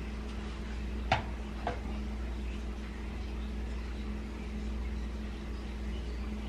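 Steady low hum with a faint hiss, broken by two short knocks about a second in, half a second apart.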